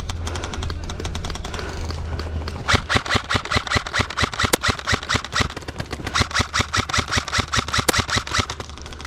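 Airsoft gun firing on full auto: a fast, even rattle of shots starting about three seconds in and running until shortly before the end, with fainter scattered airsoft fire before it.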